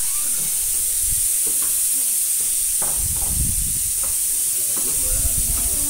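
A steady high hiss, with soft footsteps and thuds as two people climb a stairway, and faint voices near the end.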